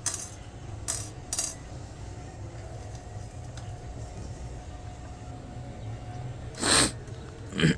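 A few light metallic clinks and rattles: three short clicks in the first second and a half, and two longer rattles near the end, over a steady low hum.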